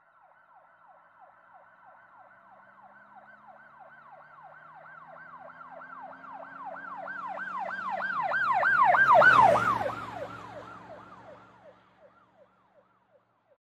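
Emergency vehicle siren in a fast yelp, about three sweeps a second, with the vehicle's own rumble beneath. It draws steadily closer, passes loudest about nine seconds in as its pitch drops, and fades away by about twelve seconds.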